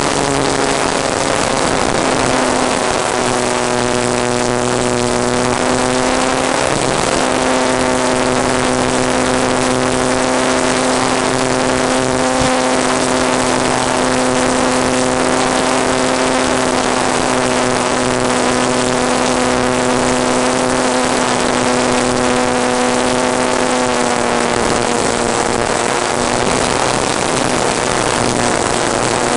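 FPV model aircraft's motor and propeller running in flight, a steady droning tone over loud rushing wind noise. The tone holds its pitch for most of the time and fades back over the last few seconds, as the throttle eases off.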